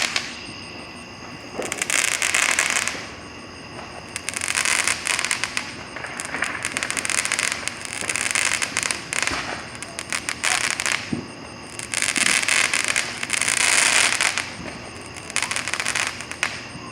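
Fireworks crackling in repeated bursts, each a second or two of dense, rapid popping, with short pauses between bursts.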